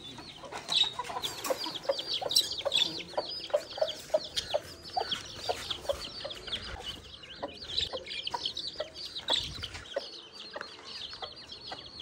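Chickens clucking, a run of low clucks about two a second for several seconds, over constant high chirping from many small birds.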